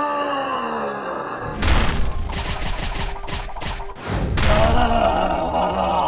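Cartoon sound effects: a creature's groaning voice that bends up and down, then a noisy crashing stretch of rapid rattling hits, then another rough groan about four seconds in.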